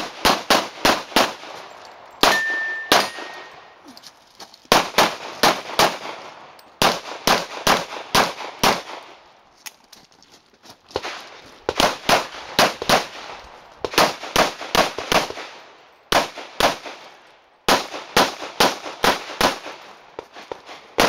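Handgun shots fired in quick strings of two to seven, with pauses of one to two seconds between strings. About two and a half seconds in, a short ringing tone follows a shot.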